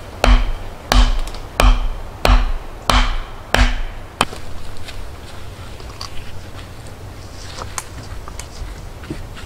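A wooden stake for the hut's raised bed frame is being driven into the forest floor with repeated blows. There are six heavy, evenly spaced knocks, about one every two-thirds of a second, each with a dull thud and a short woody ring. After about four seconds the pounding stops, leaving a few light knocks and clicks as the frame is handled.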